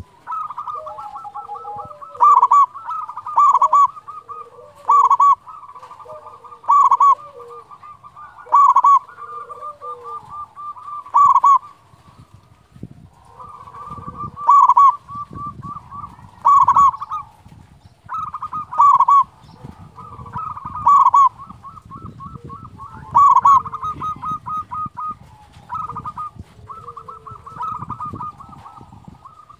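Zebra doves (perkutut) cooing: a running trill of rapid staccato notes, with a louder call about every two seconds.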